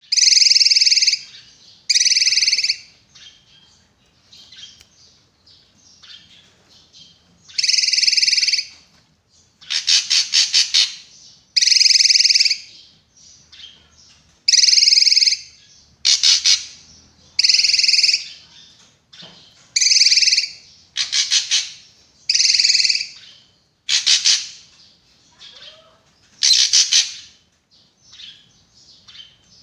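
Drongo (srigunting) calling: loud, sharp calls about a second long, repeated every two seconds or so, several broken into rapid stuttering series of notes, with softer chirps in between.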